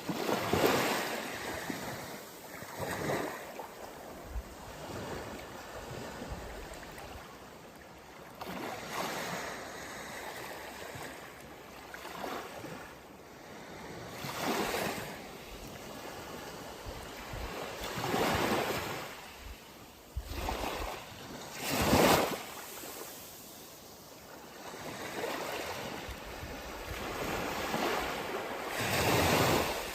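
Waves washing in: a steady rushing noise with swells that build and fade every few seconds, the loudest about two-thirds of the way through.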